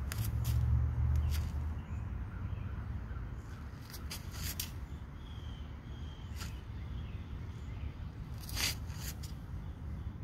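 Outdoor background: a low rumble for the first second or two, a handful of sharp clicks scattered through, and faint bird chirps about five seconds in.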